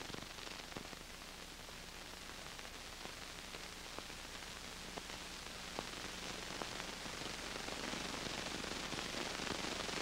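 Hiss and crackle of an old film soundtrack, with scattered clicks and pops over a low steady hum; the hiss grows a little louder near the end.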